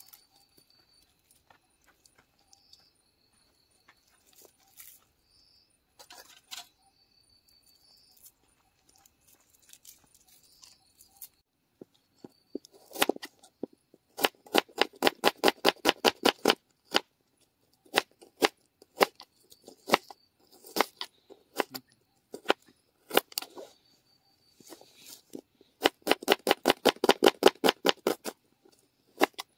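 Rapid knife chopping on a cutting board, about seven quick chops a second, in two runs of a few seconds each: one near the middle and one near the end. Sparse faint clicks come between the runs.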